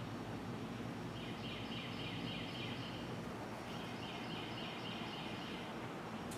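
A bird's rapid pulsing call, given twice, each series about two seconds long.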